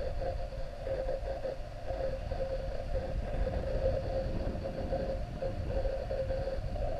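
DJI Phantom quadcopter's motors and propellers running, a steady hum with a slightly wavering tone over a low rumble of air on the microphone.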